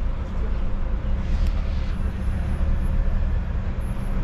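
Steady low rumble of a rubber-tyred sightseeing road train driving through city streets, heard from aboard, with road and wind noise.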